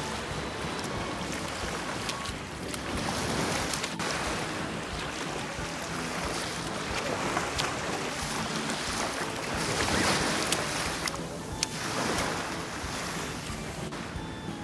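Small sea waves washing up and draining on a sandy shore, with wind buffeting the microphone.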